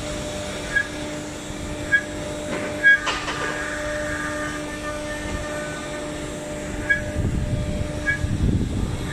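STYLECNC STM1530C CNC router running, its spindle giving a steady whine as the cutter engraves a pattern into a board. Short high chirps come a few times, with a louder one about three seconds in.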